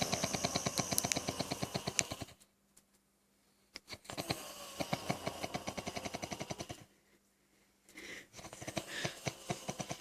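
Heavy snoring: long snores with a fast fluttering rattle, each about three seconds, repeating with short pauses between breaths.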